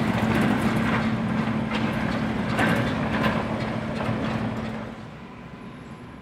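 Class 08 diesel shunter's English Electric six-cylinder engine running with a steady hum as it passes with coaches, wheels clicking over rail joints a few times. The sound fades away from about five seconds in.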